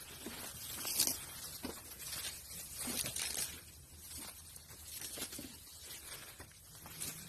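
Sumatran elephants tearing up grass with their trunks as they graze: irregular rustling and ripping, with sharper rips about one and three seconds in.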